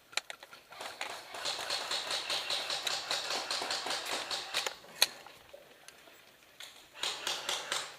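Airsoft guns firing rapid full-auto bursts of clicking shots: one long burst of about four seconds, a single sharp shot about five seconds in, then a shorter burst near the end.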